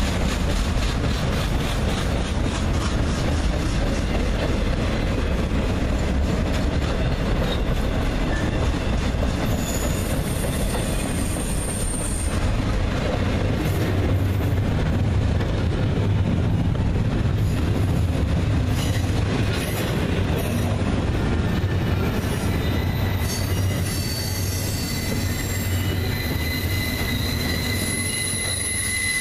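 Freight cars of a Norfolk Southern train rolling past close by: autorack cars giving way to double-stack intermodal well cars. A steady rumble and clatter of steel wheels on rail runs throughout. A thin, high wheel squeal comes in about ten seconds in, and a steadier squeal sets in near the end.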